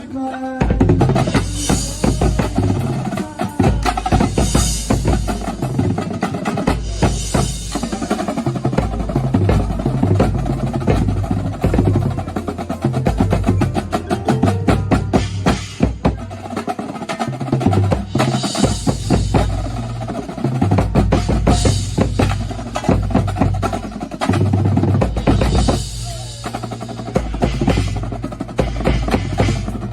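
Drum corps drumline playing a loud ensemble piece: rapid snare drum rolls and strokes over pitched bass drums moving from note to note, with bright crashes every few seconds.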